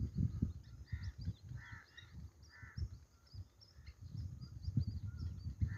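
Birds calling: about four short, harsh caws, with thin high chirps of small birds throughout. Irregular low rumbling, the loudest sound, runs under the calls.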